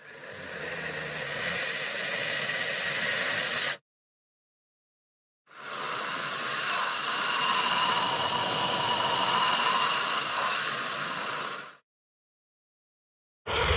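Xenomorph alien creature sound effect: two long, breathy hisses with a silent gap between them, the first about four seconds long and swelling, the second about six seconds long. A short low growl starts right at the end.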